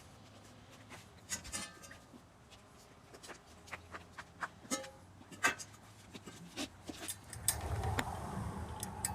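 Steel frame panels and a clamp being handled and fitted together: scattered clanks and clicks, a few with a brief metallic ring. A low rumble comes in about seven and a half seconds in.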